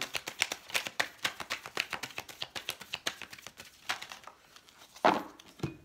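A deck of tarot cards being shuffled, a fast run of crisp card clicks that fades out, followed by a couple of louder slaps near the end, as when cards are set down on the table.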